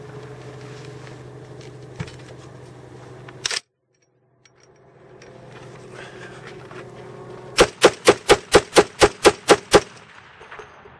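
Gas-operated .50 BMG semi-automatic rifle (Vigilance Rifles M14) firing: one shot about three and a half seconds in, then a fast string of about ten shots at roughly four a second.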